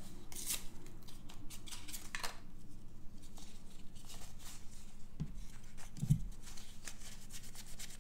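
Small handling sounds of electronics soldering work: metal tweezers clicking and tapping, and a circuit board being slid and turned on the bench mat, with two soft thumps about five and six seconds in. A faint low hum runs underneath.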